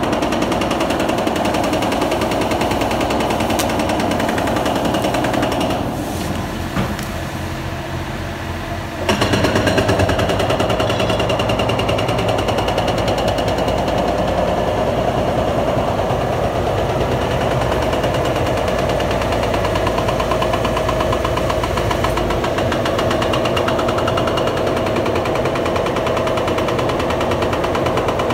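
Demolition breaker hammering rapidly and steadily on concrete, easing off for a few seconds about six seconds in, then resuming louder.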